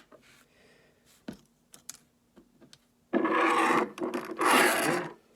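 A few faint clicks of small parts being handled, then two loud, long rasping rubs, the second a little shorter than the first.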